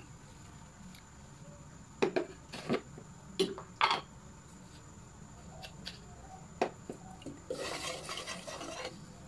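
A metal ladle and a stainless steel cooking pot clink sharply several times. Near the end the ladle stirs through the simmering broth of chicken balls for about a second and a half, scraping and sloshing against the pot.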